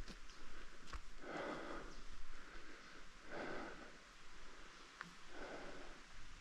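A person breathing hard from the effort of climbing uphill, with a strong breath about every two seconds and softer ones in between.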